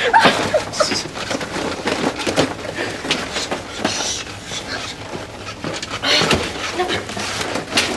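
Rustling and light knocks of a jacket being handled in a small, close-sounding cubicle, with brief faint voice sounds.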